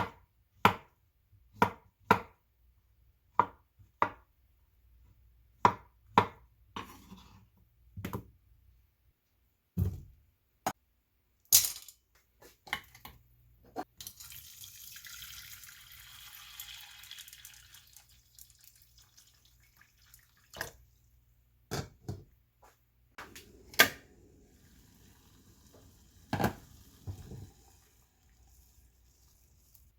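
Kitchen preparation sounds: a string of irregular sharp knocks and clinks of utensils, with several seconds of running water around the middle.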